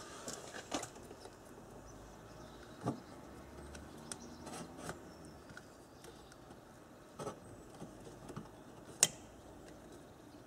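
Scattered small clicks and light knocks of hands working in a Mazda RX-8's engine bay, unplugging electrical connectors and handling plastic intake parts. The sharpest click comes about nine seconds in.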